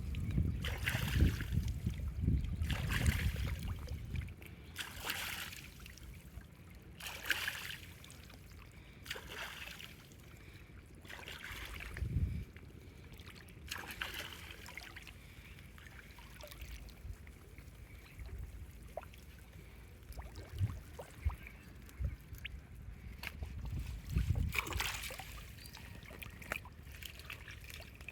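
Water splashing and sloshing in irregular bursts, busiest in the first few seconds, with quieter splashes later.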